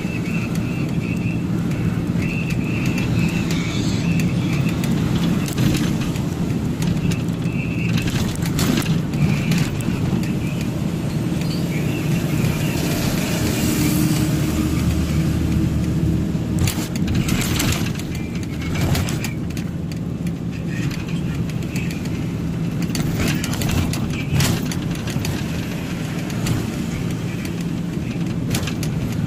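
Truck engine running steadily at cruising speed, heard from inside the cab, with a constant low drone, road noise and a few short knocks and rattles.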